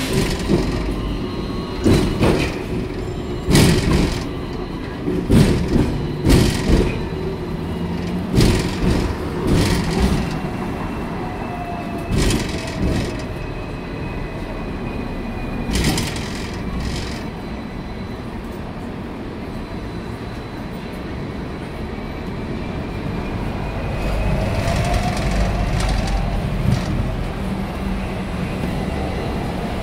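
Hong Kong double-decker electric tram running, heard from its upper deck: a steady low rumble with frequent sharp knocks and rattles through the first half, and a faint whine rising in pitch now and then. The rumble grows louder in the last few seconds as a second tram passes close alongside.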